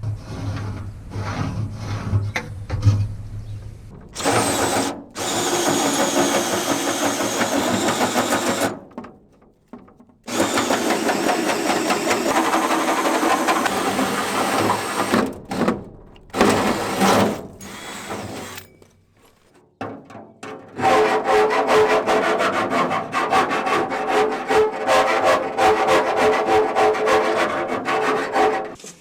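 Power drill boring holes, running in several spells of a few seconds each with short pauses between.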